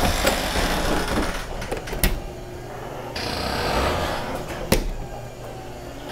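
Rustling and footfalls of someone walking, with two sharp knocks, about two seconds in and again nearly five seconds in.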